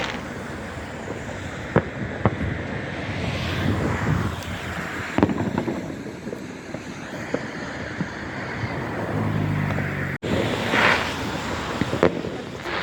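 Fireworks going off in the distance: scattered single sharp bangs, about six of them at irregular intervals, over a steady outdoor rushing noise, with a couple of longer hissing swells.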